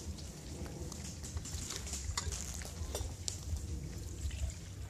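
Water poured from a stainless steel bottle into a metal camping cup, trickling, with a few light clicks of metal.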